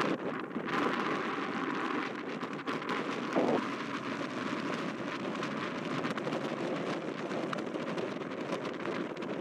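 Canadair water bomber's engines droning steadily as it flies past, mixed with rough wind noise on the microphone.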